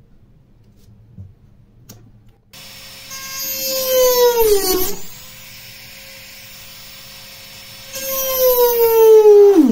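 Jeweller's electric rotary handpiece whining at high speed as its small bur cuts the stone-seat holes in a metal ring. It starts after a couple of quiet seconds, and its pitch sags twice while it is loud, with a quieter steady whine in between.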